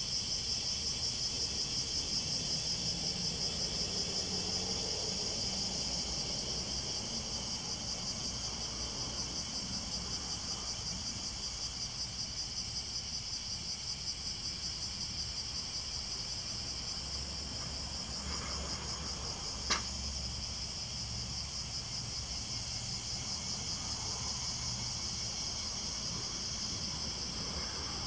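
A steady, high-pitched chorus of cicadas shrilling in summer heat. One sharp click cuts through about two-thirds of the way in.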